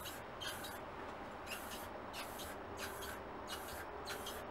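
Rustoleum spray paint can spraying in a string of short hissing bursts, roughly one or two a second, dusting paint over leaves laid on a rifle as a camo stencil.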